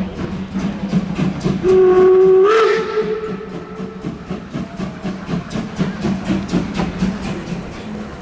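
Steam whistle of German class 01 Pacific locomotive 01 202, blown once for about a second and rising slightly in pitch just before it stops. Underneath it the locomotive keeps up an even, rhythmic chuffing as it moves slowly.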